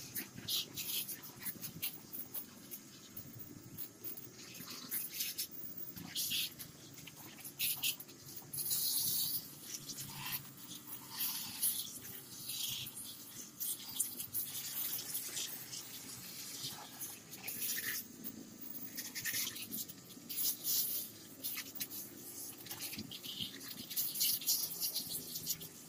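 Water jet from a portable mini pressure washer hitting a motorcycle's rear wheel, exhaust and engine, a hiss that comes and goes in short uneven bursts as the spray is swept over the bike, over a low steady hum.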